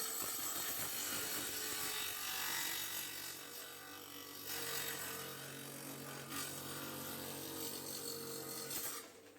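Electric tile saw's blade cutting through a masonry block, a steady gritty hiss over the motor's hum. It cuts from one side, briefly changes about halfway through as the block is turned for the second side, then cuts again and stops shortly before the end.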